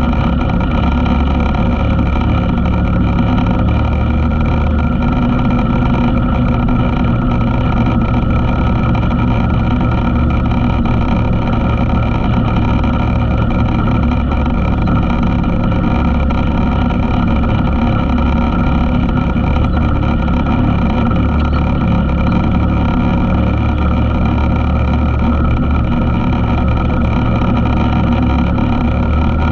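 ATV engine running at a steady speed, holding a nearly constant pitch with small shifts up and down now and then.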